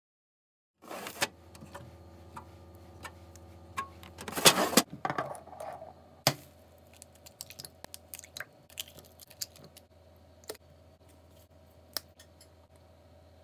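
Eggs being handled on a kitchen counter: a run of clicks and knocks with a louder clatter about four to five seconds in, then scattered light taps over a steady low hum.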